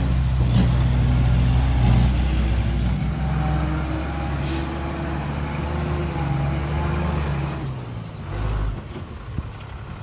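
Heavy construction vehicle's diesel engine running under load, loudest for the first few seconds and then falling away after about seven seconds. A brief hiss comes about four and a half seconds in, and there is a short low thud near the end.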